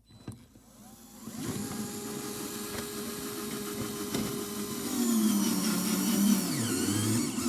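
Power drill/driver running as it drives a screw: the motor whine builds over the first second or so and holds steady, then drops lower and wavers from about five seconds in as it loads up. The user fears the screw has stripped.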